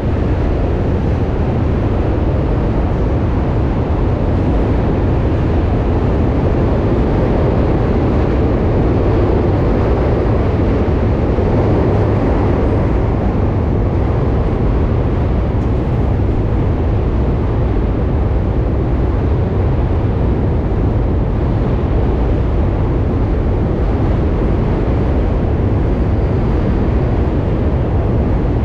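Steady rush of wind on the camera microphone while riding a bicycle through city streets, heavy and low, with no change over the stretch.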